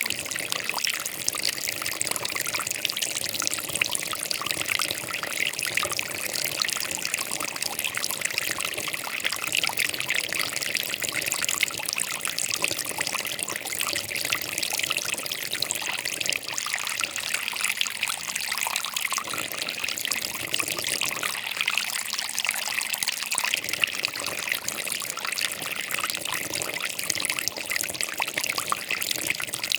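Flowing water trickling and babbling steadily, an even splashing hiss that is brightest in the upper register.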